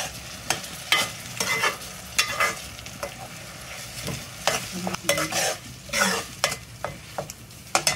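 A metal spoon stirring and scraping a thick tomato-and-onion masala around a metal pan, with irregular scrapes against the pan over a steady sizzle of frying. The spices have just gone in and are being mixed into the frying base.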